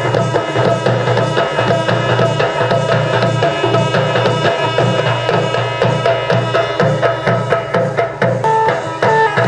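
Folk dance music: drums beating a fast, steady rhythm under sustained pitched notes from a melody instrument, with a few higher held notes coming in near the end.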